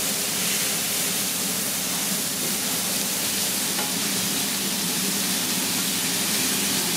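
Smashed beef burger patties sizzling steadily on a flat-top steel griddle. A metal spatula scrapes along the griddle surface as it slides under the patties to turn them.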